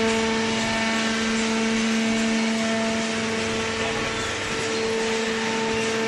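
Horizontal cardboard baler running, its hydraulic pump motor giving a steady hum at a constant pitch over a wash of machine noise.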